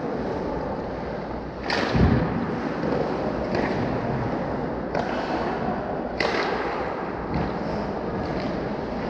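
Hockey game play: several sharp cracks of sticks striking the puck over a steady wash of rink noise, with a dull thud about two seconds in.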